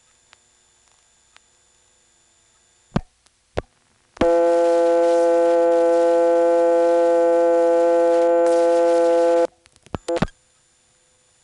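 1970s analog telephone exchange heard down the line: faint switching ticks, two loud relay clicks, then a loud, steady, buzzy call-progress tone for about five seconds that cuts off abruptly, followed by a short cluster of clicks as the connection drops.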